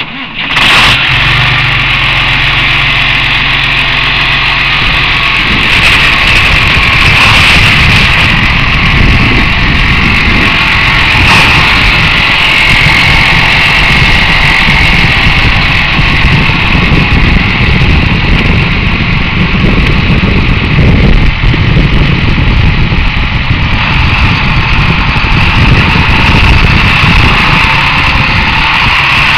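John Deere 8300 MFWD tractor's six-cylinder turbo diesel engine running steadily, heard close up beside the engine compartment.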